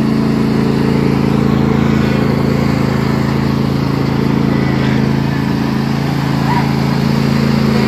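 John Deere riding lawn mower's engine running at a steady, unchanging pitch as the mower is driven along.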